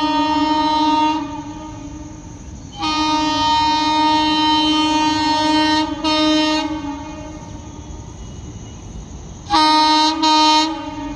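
Horns of twin WAG-7 electric locomotives sounding repeatedly as the train passes at speed: a blast ending about a second in, a long blast of about four seconds, then two short toots near the end, over the running noise of the train.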